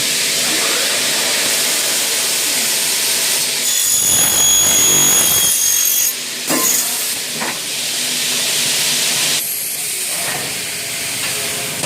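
CNC machine cutting an aluminium window profile: a loud steady hiss, with a high-pitched whine for about two seconds near the middle and a few sharp clicks after it.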